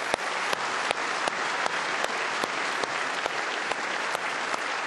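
Large audience applauding steadily, a dense wash of clapping with single sharp claps standing out.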